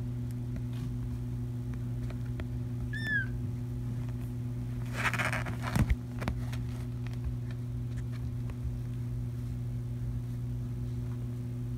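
A kitten gives one short, high, falling mew about three seconds in, over a steady low hum. Around the middle comes a brief rustle with a couple of knocks, the loudest sound.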